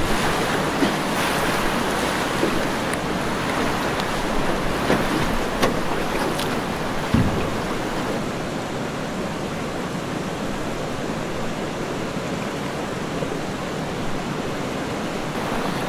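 Swift river water rushing and splashing around a small aluminum boat running a riffle, with wind buffeting the microphone. The rush eases slightly about halfway through, and there is one brief knock about seven seconds in.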